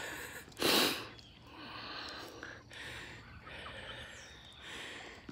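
Faint chirps and soft calls of a flock of young hens foraging outdoors, over quiet yard ambience. There is a brief rush of noise just under a second in.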